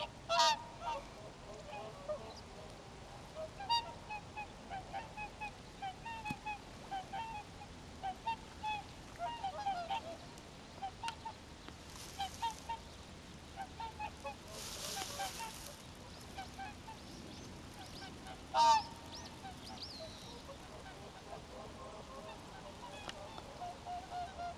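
A flock of swans calling: many short honking calls overlapping one another, with louder calls about half a second in and again near the end. Two brief rushes of hiss come around the middle.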